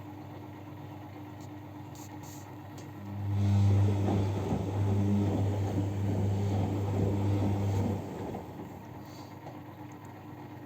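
Siemens washing machine on a very high water level wash: the motor hums steadily as it turns the drum, with water churning, for about five seconds, then the drum stops and only a low background hum remains.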